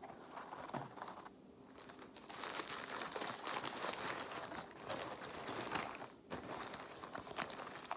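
Paper sandwich wrapper crinkling and rustling as it is unwrapped, with a short pause about one and a half seconds in.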